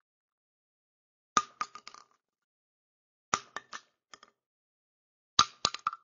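A 12-gauge shotgun shell dropped onto a concrete floor three times, about two seconds apart. Each drop lands with a sharp clink and a short metallic ring, then bounces a few times as it settles.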